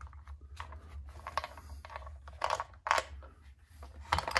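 Plastic parts of a radio-controlled car's chassis and front end clicking and knocking irregularly as they are handled and fitted together by hand, over a steady low hum.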